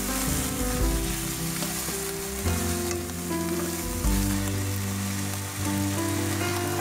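Vegetables sizzling in a hot oiled pan as they are stirred and tossed with chopsticks, over soft background music with held low notes.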